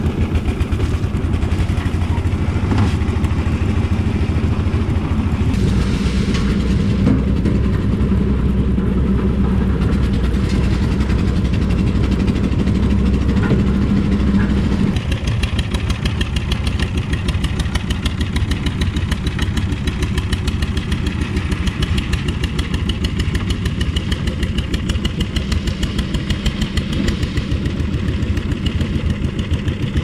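A concrete mixer's engine running steadily, driving the drum, with a continuous low rumble and rattle. About halfway through, its sound changes abruptly to a busier, higher rattle.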